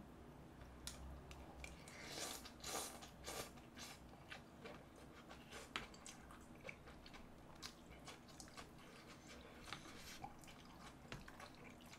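Close eating sounds of mala tang, a spicy noodle soup: faint slurps of noodles and broth about two to three seconds in, then wet chewing with many small clicks of metal tongs and a spoon in the soup.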